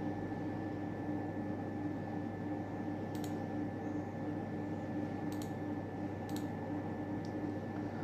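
A few faint computer mouse clicks, about four, over a steady low background hum.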